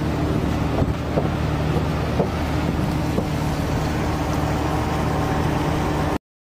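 Heavy machinery running with a steady drone and a constant hum, with a few faint knocks; it cuts off suddenly about six seconds in.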